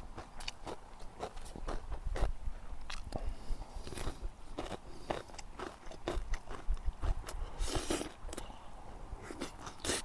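Close-up crunchy chewing of kimchi: a quick, irregular run of sharp crunches, several a second.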